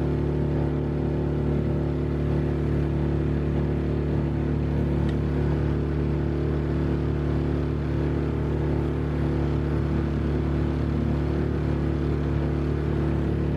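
Small river boat's outboard motor running at a steady cruising speed, heard from on board as an even, unchanging drone.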